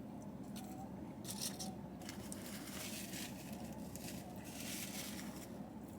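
Faint sipping of a drink: soft hissy slurps, one about a second in and a longer stretch from about two to five and a half seconds, over a low steady room hum.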